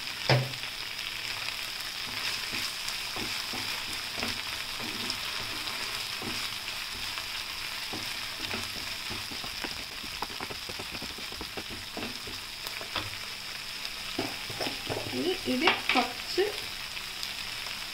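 Chopped onion and tomato sizzling steadily in oil in a nonstick frying pan, stirred with a wooden spatula that scrapes and taps against the pan. There is one sharp knock right at the start and a run of taps about two seconds before the end.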